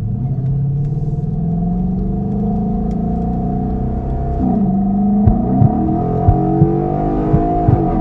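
A Ford Mustang GT's 5.0 V8 accelerating. Its pitch climbs steadily, drops suddenly about four seconds in as at a gear change, then climbs again. Several short, sharp knocks come in the second half.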